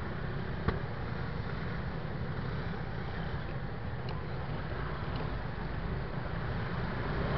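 MBK Tryptik three-wheeled scooters running at low speed amid street traffic, a steady rumble, with one sharp click about two-thirds of a second in.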